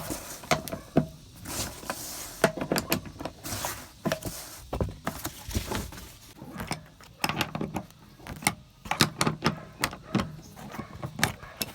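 Irregular clicks, knocks and metallic rattles of hand tools and metal fittings being worked while removing a vehicle's seat and its trim.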